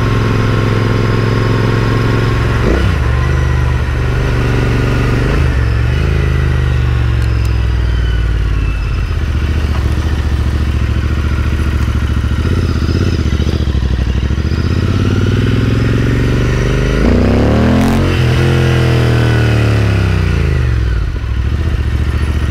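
Royal Enfield Interceptor 650's parallel-twin engine running under way through an aftermarket AEW exhaust, with a BoosterPlug fitted. Its pitch dips briefly twice early on, as at gear changes. Near the end it rises quickly and then falls away steadily.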